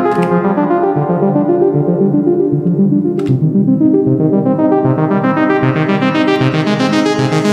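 Helm software synthesizer playing a fast arpeggio over held keys across two octaves. Its low-pass filter cutoff is swept down so the notes go dull and muffled, then opened back up so they turn bright and buzzy again. There is a brief click about three seconds in.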